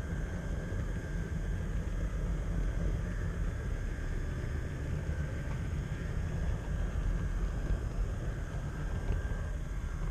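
HO-scale model train rolling along the track, heard from a camera riding on it: a steady low rumble with a thin, steady whine above it.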